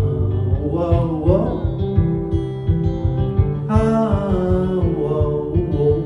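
Live band playing an instrumental passage of a country-rock song, led by guitars, with a pitch bend about a second in.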